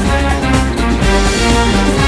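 Loud soundtrack music with sustained instrumental notes and a heavy low end.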